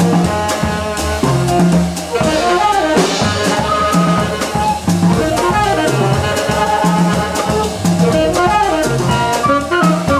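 Small jazz band playing live: flute and saxophone lines over bass and drum kit, with frequent cymbal and drum strokes.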